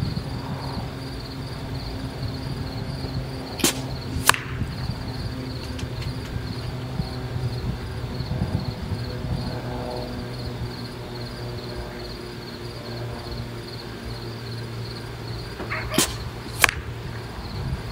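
Two shots from a Benjamin Marauder .25 pre-charged pneumatic air rifle, about twelve seconds apart. Each sharp crack is followed about half a second later by a second crack, the pellet striking the laptop target downrange.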